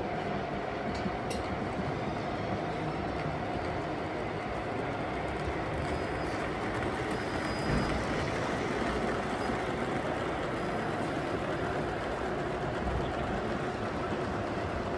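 O gauge model trains running on a large layout, a steady rumble with a faint steady whine.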